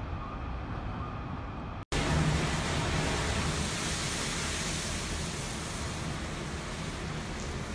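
Typhoon wind rushing steadily with driven rain, dull and quieter for about two seconds. Then, after an abrupt cut, a louder, hissier rush of gale-force wind blowing spray across an open street.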